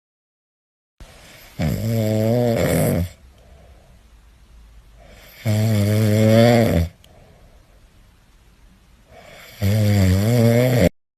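Kitten snoring: three long, loud, buzzing snores about four seconds apart, with quieter breathing between them.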